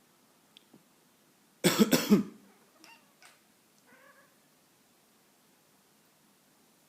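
A person coughs several times in a quick, loud burst. About two seconds later a cat gives a short, quieter meow of protest at the coughing.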